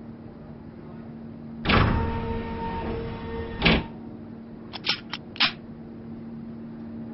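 Shooting-range sound effects: a target carrier runs down the lane for about two seconds with a whirring whine and ends in a clunk, then a few sharp metallic clicks as a pistol is readied, over a low steady hum.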